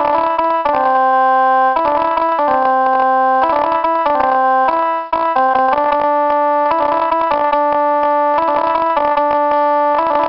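Keyboard music: an electronic keyboard playing a tune over held chords, starting abruptly after a brief silence.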